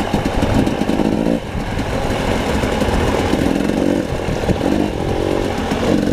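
Dirt bike engines running while riding a gravel trail, the revs rising and falling every second or so with the throttle.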